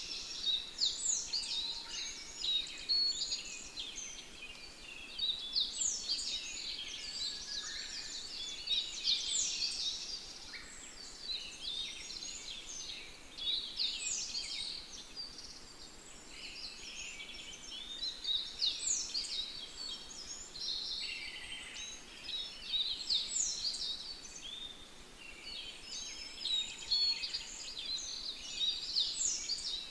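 Birds chirping and calling, a busy chorus of quick, high, downward-sweeping notes that swells in bursts every few seconds.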